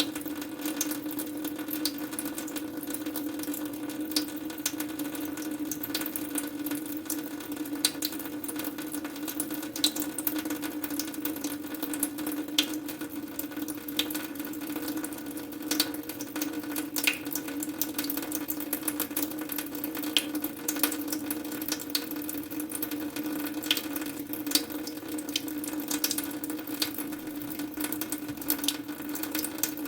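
Water running in a steady, unbroken stream, with many small splashes and drips scattered through it.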